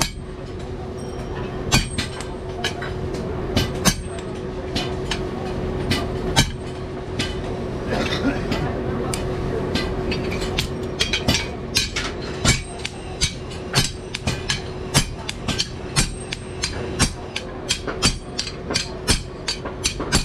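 Blacksmith's hammer striking metal: a few scattered blows at first, then a steady beat of about two blows a second through the second half.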